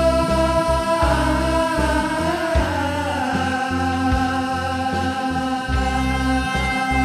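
Folk-style song: a voice holds a long note that slides down in pitch about a second in, over steady instrumental backing with bass and regular drum beats.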